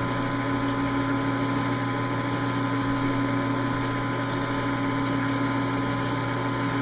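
Metal lathe running at a steady speed: the motor and spindle give an even mechanical hum, a low drone with a higher whine over it.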